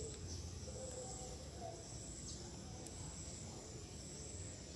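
Faint swamp ambience: a steady, high-pitched insect drone, with a few faint short calls.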